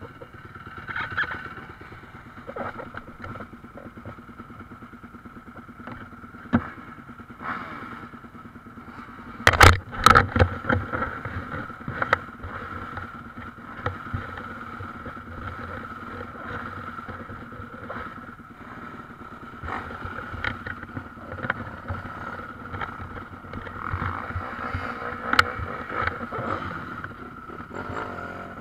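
Motocross bike engines running at idle, a steady hum throughout, with a burst of sharp knocks about ten seconds in and smaller clicks here and there.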